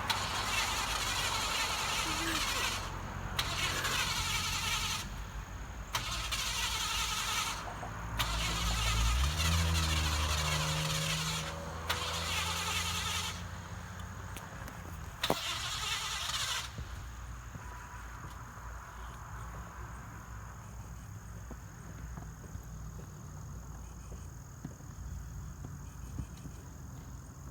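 A car's starter cranking the engine in five attempts of a few seconds each, with short pauses between them, and the engine failing to start. The longest attempt, about ten seconds in, brings a deeper rumble. The cranking stops after about seventeen seconds, leaving a quieter steady background.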